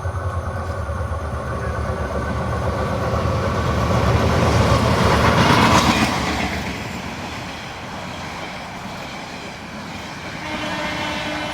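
Train passing on the track: the rumble and rattle of its wheels on the rails build to loudest about five to six seconds in, then fade.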